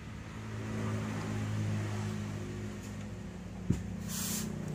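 Steady low motor hum, swelling slightly in the first second or two, with a sharp click a little past halfway and a brief hiss near the end.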